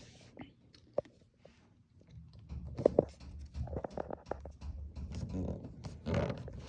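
Handling noises from working the windshield gasket and its clips by hand: a sharp click about a second in, then irregular low rubbing and rumbling with scattered light knocks from about two seconds in.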